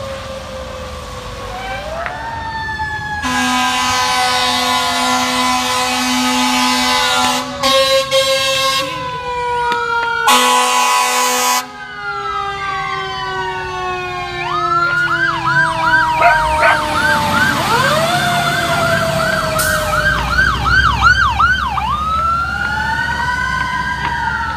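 Emergency vehicle siren sound effects: long falling wails overlapping one another, a horn blast about three seconds in that lasts some four seconds and a shorter one around ten seconds in, then a fast yelp siren warbling about twice a second before a final rising and falling wail.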